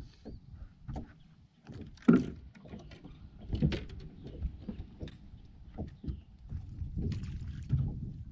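Water lapping and slapping against a boat's hull, with irregular knocks and a louder sharp thump or splash about two seconds in.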